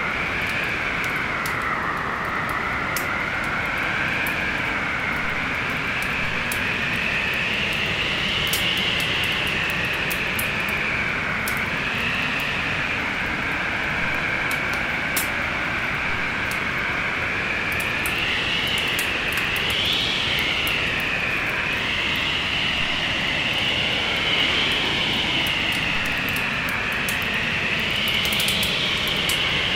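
Storm wind blowing steadily with a whistling tone that slowly wavers up and down in pitch, over a wood fire crackling with scattered sharp pops.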